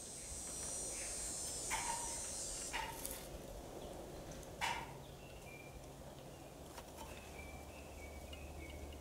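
Hand-pumped caulking gun laying a bead of urethane windshield adhesive, its trigger clicking faintly three times over the first five seconds, with faint short high tones in the background.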